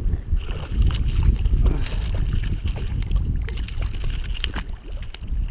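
Water sloshing and splashing with many short knocks around a small inflatable raft, over a low wind rumble on the microphone.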